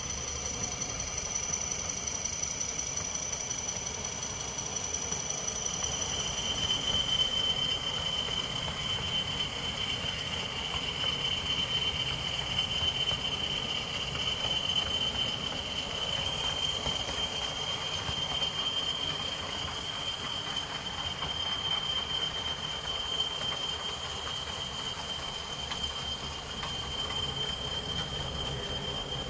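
Model train running along the layout's track, its wheels rolling over the rails, with a steady high-pitched whine that shifts to a lower pitch about six seconds in.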